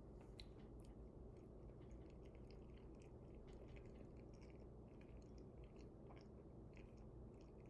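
Faint, wet chewing of banana: small irregular mouth clicks and smacks over a low, steady background hum.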